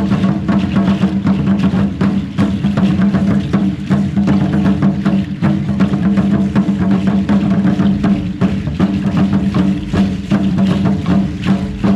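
Live music for a traditional Mexican dance: a steady held tone under fast, dense percussion strokes.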